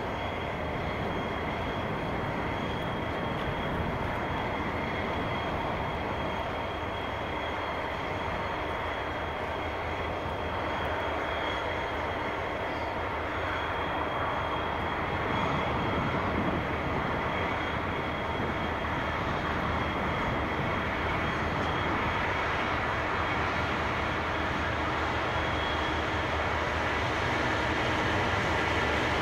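Diesel locomotives of a stationary Pacific National grain train idling steadily with a constant high whine. An approaching CSR Ziyang SDA1 diesel locomotive hauling a container train grows louder, above all near the end.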